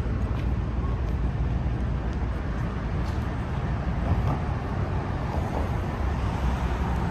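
Steady city traffic noise: a continuous low rumble of passing vehicles with no single sound standing out.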